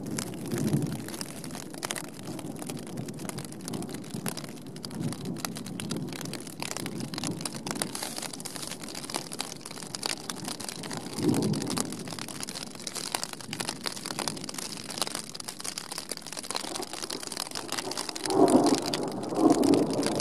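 Heavy rain falling steadily in a mountain thunderstorm, a dense patter of drops, with low rumbles of thunder swelling now and then; the loudest rumble comes near the end.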